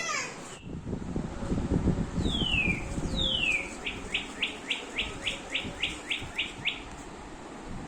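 Motion-activated toy 'love bird' chirping: two falling whistles, then a quick run of about eleven short, evenly spaced chirps, with handling rustle underneath at first.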